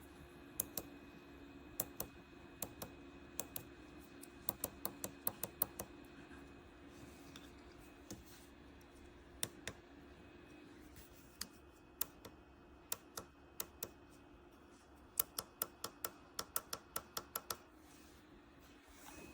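Sharp light clicks and taps, singly, in pairs and in quick irregular runs like typing, over a faint steady hum.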